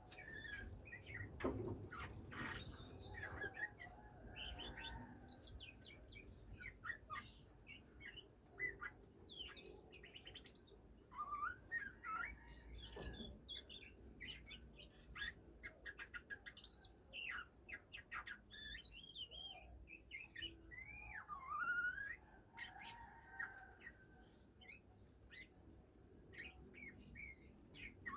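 Oriental magpie-robin chirping and singing in a stream of short, varied notes, whistles and rising and falling slurs, with a few dull knocks in between.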